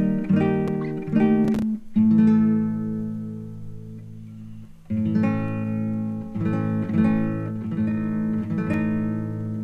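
Background music on acoustic guitar: plucked and strummed chords, one left ringing for about three seconds before the playing picks up again.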